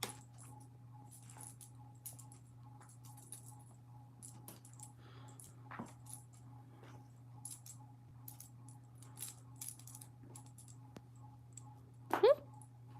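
Scattered light, quick clinks and jingles of a kitten at play, over a steady low hum, with one brief louder sliding cry about twelve seconds in.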